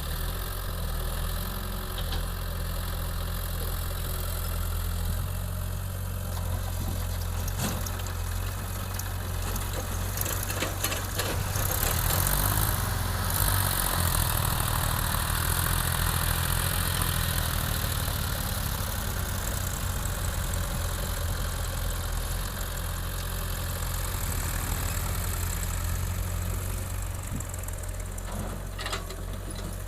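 Excavator's diesel engine running steadily under load while it digs, louder for a few seconds near the middle, with a few short knocks.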